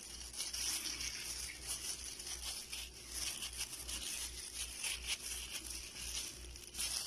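A hand in a thin plastic glove mixing and kneading pork belly pieces in marinade on a plate: irregular crinkling of the glove with soft wet squishing.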